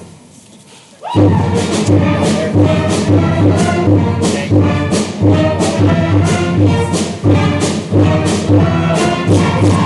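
Loud upbeat music with brass and a strong, steady beat. It starts abruptly about a second in, just after earlier music fades out.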